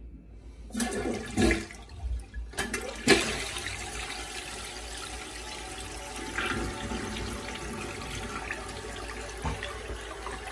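A 1993 Crane Radcliffe toilet flushing. Bursts of noise about a second in and a loud gush about three seconds in start the flush, then water swirls steadily down the bowl.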